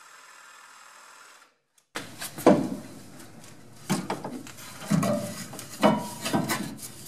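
A wooden pattern piece being pushed and knocked into place against a steel frame rail: a run of sharp knocks, the first the loudest, with scraping and rubbing of wood on metal between them.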